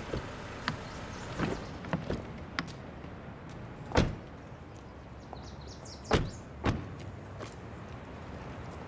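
Doors being shut: a few light clicks and knocks, then a heavy slam about four seconds in and two more slams in quick succession a little after six seconds, over a steady low background noise.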